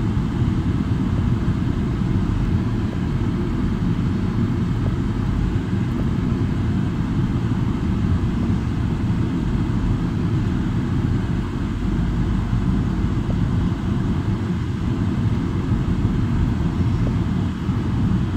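Steady low rumble of a car rolling slowly along a gravel road, with no sudden sounds.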